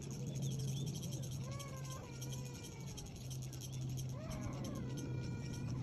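A cat meowing: drawn-out calls about one and a half seconds in and again past four seconds, over a steady low hum.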